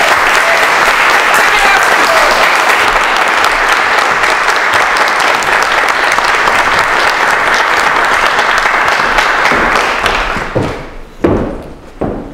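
Audience applauding steadily, dying away about ten seconds in, followed by a few thuds near the end.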